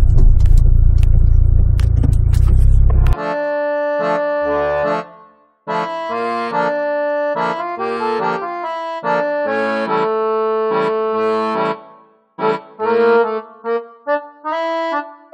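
Car driving, a loud low road-and-engine rumble that cuts off abruptly about three seconds in. Background music follows: held chords in short phrases with brief gaps, an accordion-like sound.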